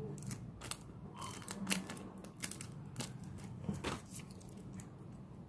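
Fingers pressing and handling a homemade pop-it fidget toy, making a string of irregular small clicks and crackles, with one sharper click about a second and a half in.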